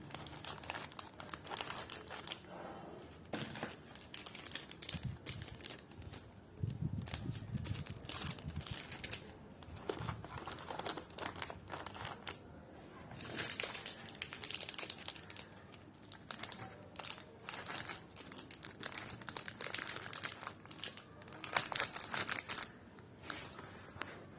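Crinkly wrapping material being handled and crumpled, crackling in irregular bursts, with some dull low handling knocks around seven seconds in.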